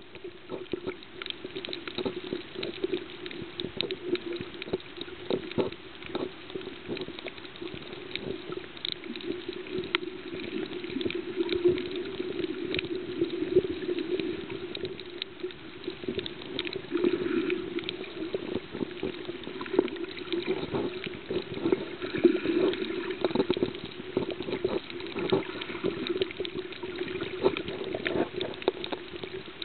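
Underwater sound picked up by a camera held below the surface: a continuous watery hiss with a steady low hum and dense, irregular crackling clicks throughout.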